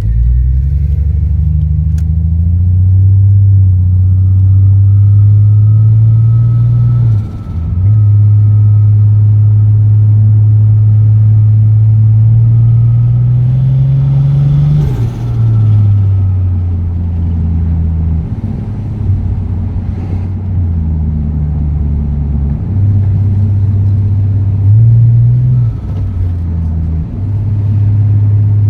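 Toyota Supra's turbocharged straight-six running through an HKS straight-through exhaust during a drive, its deep note rising in pitch as the car accelerates and dropping at each of several gear changes. The engine has a misfire on one cylinder, which the owner suspects comes from a blocked injector.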